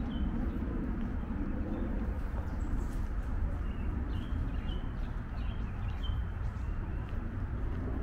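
A small bird gives short, high chirps again and again over a steady low rumble.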